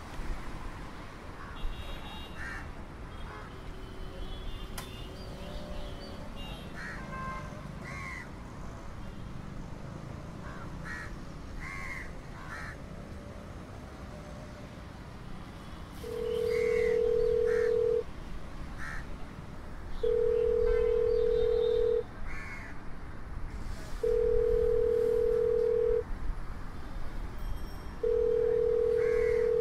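Outdoor background with short bird calls. From about halfway, a phone call's ringing tone sounds in the earphone: a steady mid-pitched tone for about two seconds, then two seconds of pause, four times over, the call going unanswered.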